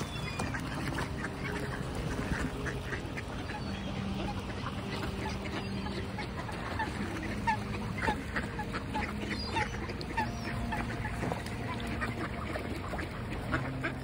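A flock of waterfowl, mostly mallards, quacking: many short calls overlapping throughout.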